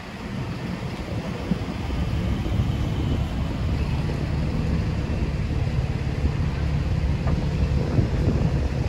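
City road traffic: a steady low rumble of cars and buses going by, growing louder over the first couple of seconds and then holding.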